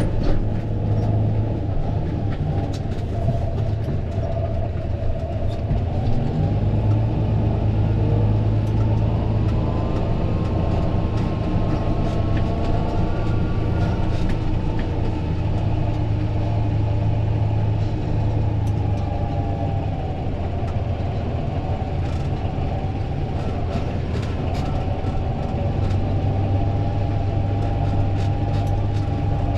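Fendt 936 Vario tractor's six-cylinder diesel engine running steadily under load, its note rising somewhat partway through and then holding, with scattered light knocks and rattles.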